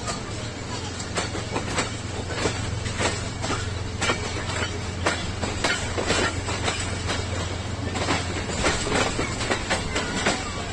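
Passenger coach wheels clacking over rail joints and yard switches as the train pulls out: an irregular run of sharp clicks, a few a second, over a steady low rumble.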